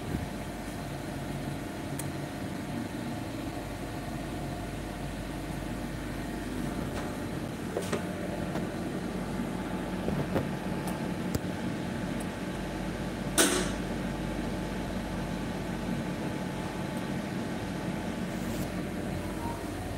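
Steady hum of a surface grinder running, with a few light clicks and one sharper knock a little past halfway.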